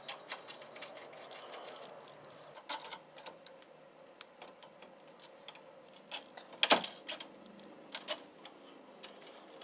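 Scattered light metallic clicks and clinks of a ratchet wrench and steel bolt hardware as a heim-jointed tie rod is bolted to the steering knuckle, with the loudest clatter about seven seconds in.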